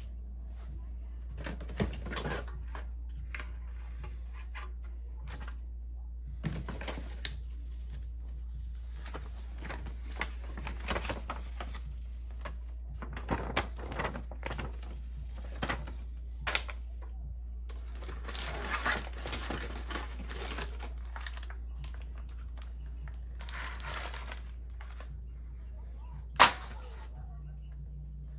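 Packaging and vacuum parts being handled during an unboxing: scattered clicks, taps and rustling of cardboard and plastic, with one sharp click near the end, over a steady low hum.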